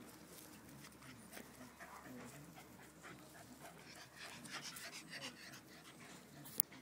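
Rottweiler chewing an apple, with soft irregular crunches mixed with dog panting; a single sharp click near the end.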